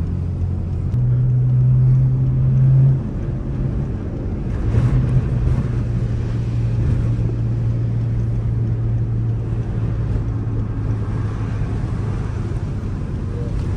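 Straight-piped BMW N54 3.0-litre twin-turbo straight-six droning steadily, heard from inside the cabin. About a second in, its pitch steps up and it grows louder for two seconds, then drops away abruptly. A second and a half later it settles back into a steady drone.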